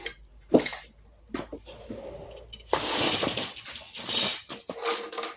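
Packaging being handled and unwrapped: a sharp knock about half a second in, scattered taps and clicks, and longer stretches of rustling near the middle and again about four seconds in.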